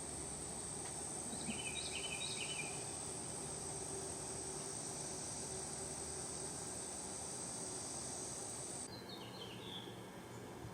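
Insects trilling in a steady high continuous buzz, with a few short bird chirps about two seconds in and again near the end. The trill cuts off suddenly near the end.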